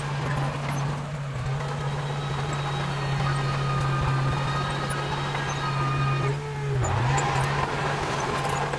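Heavy diesel engine of earthmoving equipment running steadily, its pitch dipping briefly about seven seconds in, as if under a moment of load, then recovering.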